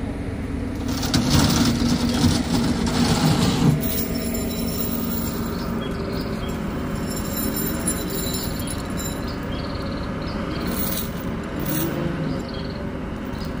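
Heavy truck engine running steadily, louder for a few seconds near the start.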